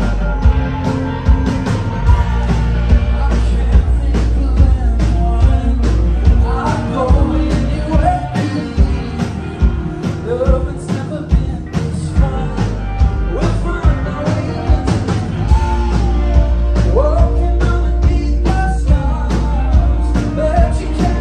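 Live rock band playing: two electric guitars and a drum kit with regular, driving drum hits, and a man singing over them from about six seconds in.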